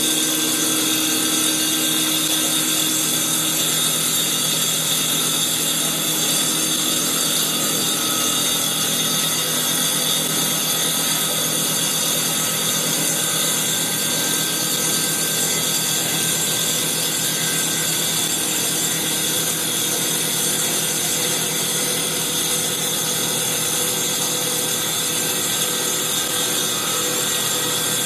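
CNC wood lathe turning a wooden baseball bat blank with a spinning circular saw blade in place of carbide cutters, taking a 3 mm-deep pass with the spindle at 3000 RPM. The blade cutting the wood gives a steady, unbroken, high-pitched machine whine and hiss.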